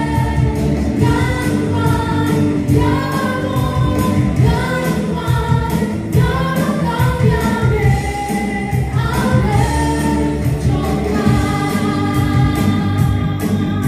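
Live praise and worship song: a group of singers, mostly women, singing together in held, gliding notes over a live band with a steady drum beat and bass.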